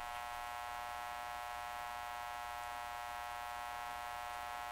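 Steady electrical hum with a buzzy row of high overtones, unchanging throughout; nothing else is heard.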